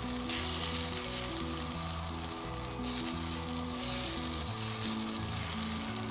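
Pesarattu batter sizzling on a hot tawa, a steady high hiss, over background music of held low notes that change every second or so.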